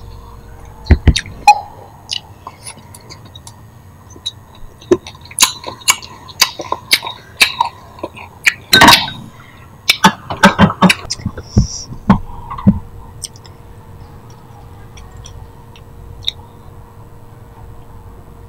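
Close-miked eating sounds: chopsticks clicking against a wire grill rack of barbecued meat, and chewing and mouth noises, as a run of sharp clicks and short crackly bursts with a loud cluster about halfway through. The last few seconds are much quieter.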